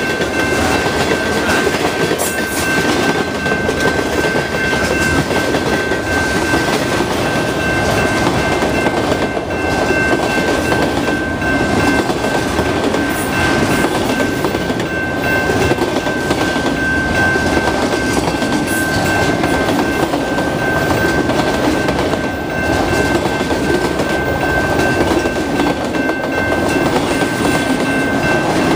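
Freight cars of a CN mixed freight, tank cars then autoracks, rolling through a level crossing in a steady rumble, with occasional sharp clicks from the wheels. The crossing's warning bell rings on as a steady high tone throughout.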